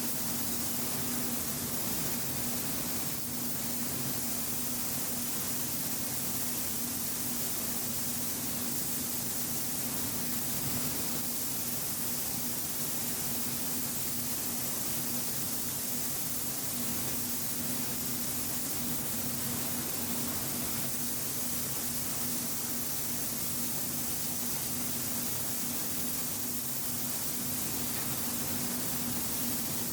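Compressed-air paint spray gun hissing steadily as it sprays paint, over a steady low hum.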